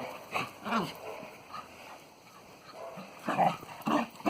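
A springer spaniel and a cocker spaniel playing rough together, giving short bursts of play growls and yaps. There are a couple of bursts early, a quieter stretch, then two louder ones near the end.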